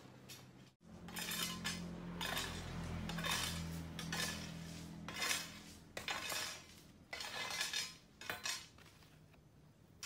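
Dry, dead leaves crackling and rustling as hands strip them from a potted aglaonema plant, in short bursts about once a second.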